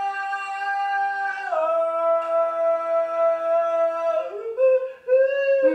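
A woman's singing voice holding long notes: one for about a second and a half, a lower one for about two and a half seconds, then shorter notes rising near the end.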